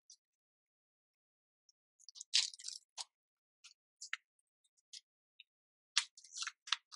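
Paper crinkling and rustling in short crackly bursts, one cluster about two seconds in and another near the end, with a few light ticks between.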